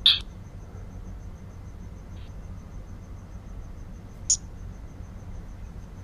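A cricket chirping faintly in an even high pulse over a steady low hum, with two short sharp clicks: one at the very start, the loudest, and another a little past four seconds in.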